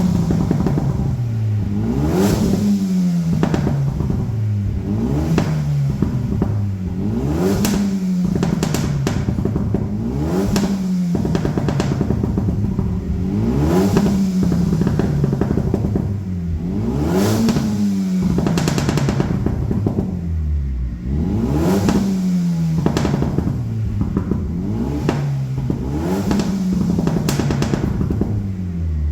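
Kia cee'd GT's 1.6-litre turbocharged four-cylinder on a stage 1 tune, revved in repeated blips every couple of seconds. Each rise in revs is followed by pops and crackles from the exhaust as the revs fall.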